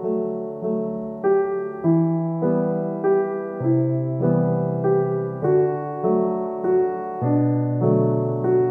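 Background solo piano music, a gentle, slow piece with notes and chords struck at an even pace, a little under two a second, each ringing and fading.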